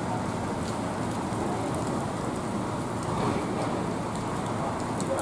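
Steady rain pouring down on wet pavement: a constant, even hiss of falling water.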